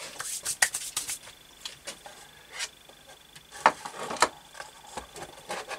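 Scattered light clicks, taps and rustles of hands handling small metal engine parts and tools on a wooden workbench, with two sharper knocks about two thirds of the way in.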